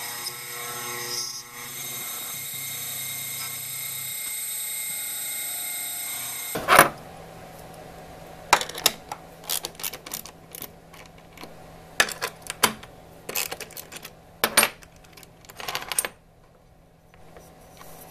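CNC router spindle running with an end mill in a pocket in an aluminum plate, a steady whine of several tones, cut off by one loud click about six and a half seconds in. Then irregular clicks and taps as a brush sweeps aluminum chips around the plate, over a low steady hum.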